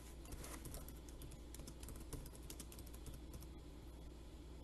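Faint computer keyboard typing: a quick run of light key clicks.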